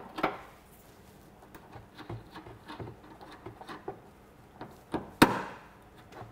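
Hand work on a car's plastic bumper fastenings: a run of small clicks and knocks as a makeshift fastening is pulled out and a proper bumper clip is fitted, with one sharp, loud click about five seconds in.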